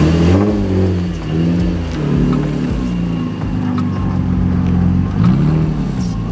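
Infiniti G35 coupe's 3.5-litre V6 through a muffler- and resonator-deleted single 3-inch exhaust, loud, as the car pulls away slowly; the revs rise and fall several times with throttle blips, hold steady in the middle, then climb again near the end.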